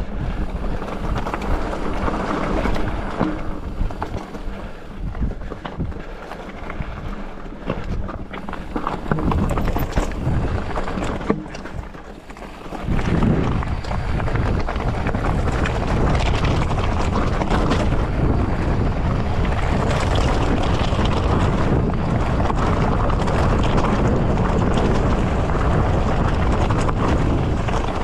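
Polygon Siskiu T8 mountain bike riding down a rocky trail: wind buffets the microphone and the tyres and bike rattle over rock, with many short knocks in the first half. About 13 seconds in, the rush of wind and rolling grows louder and steadier as speed builds on the descent.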